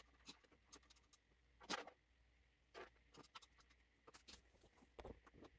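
Quiet, scattered small clicks and light rattles as a metal TV wall-mount bracket is screwed onto the back of a TV by hand. The loudest rattle comes a little under two seconds in, with a few more near the middle and near the end.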